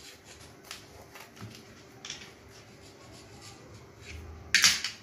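A knife sawing through a crisp deep-fried bread pakora on a plate: a series of faint crunching strokes, then one much louder crunch near the end.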